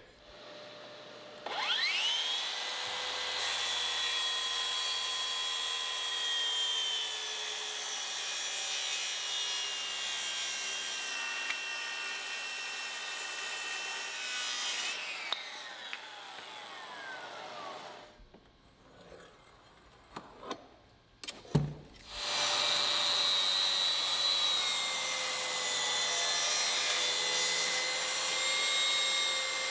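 Makita cordless track saw crosscutting a solid pine door: the motor whines up to speed and runs steadily through the cut for about thirteen seconds, then winds down. After a pause with a few clicks and a thump, the saw starts up again and runs steadily through a second cut.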